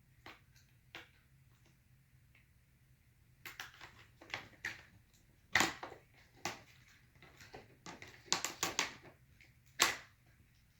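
Plastic screen bezel of a Dell Inspiron 15 5567 laptop being pried and wiggled off: an irregular series of sharp plastic clicks and snaps as its clips let go, growing busier partway through.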